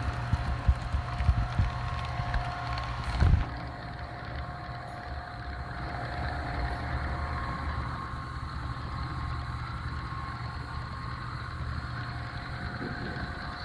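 Model train running on a layout: a steady electric hum with two held tones. Scattered clicks over the first three seconds, a louder knock about three seconds in, then the hum settles a little quieter.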